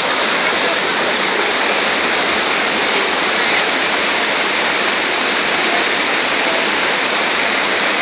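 Waterfall pouring over rocks into a plunge pool: a loud, steady rush of water.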